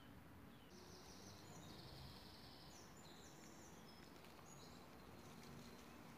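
Near silence: faint outdoor ambience, with faint high-pitched chirps between about one and five seconds in.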